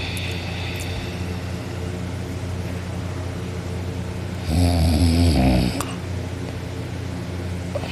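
A person snoring through an open mouth: one loud snore lasting about a second, a little past halfway, over a steady low hum.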